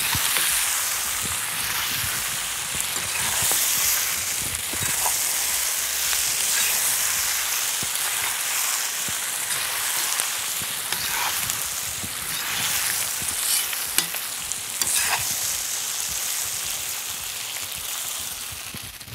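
Potatoes, pork and onion sizzling as they fry in a cast-iron kazan, stirred with a metal slotted spatula that scrapes and clicks against the pot now and then, one click standing out about fourteen seconds in.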